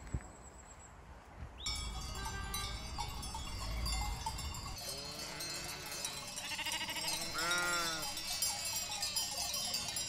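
Livestock neck bells clanking and jingling as a flock moves, starting about two seconds in, with bleating and one loud bleat about seven and a half seconds in.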